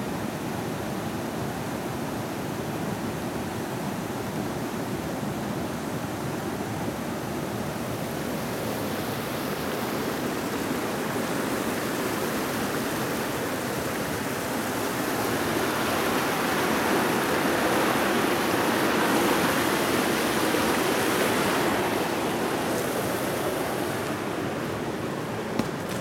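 Steady rush of running water from a stream. It grows louder for several seconds past the middle, then eases back.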